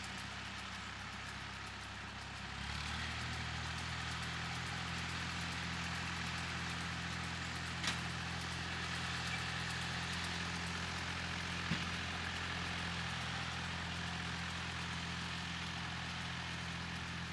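Massey Ferguson 35 tractor engine running steadily, its note stepping up and getting louder about two and a half seconds in. Two short sharp knocks come in the middle.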